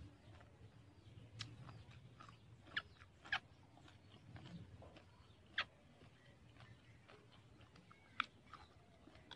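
Faint chewing of crisp fried cassava chips, with a few sharp clicks and crackles as a metal spoon moves through the chips in the bowl.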